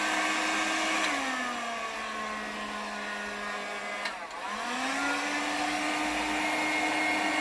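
Hot-air heat gun running with a steady fan-motor whine. Its pitch sinks about a second in, then a click just after four seconds and the whine climbs back up.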